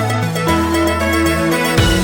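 Background music: an upbeat electronic track with a bass line moving in held notes, drums coming in near the end.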